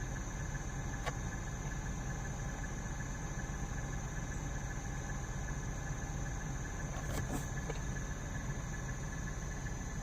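Dodge engine idling with a steady low rumble, running with a random misfire (code P0300) that persists after a tune-up. A short click about a second in.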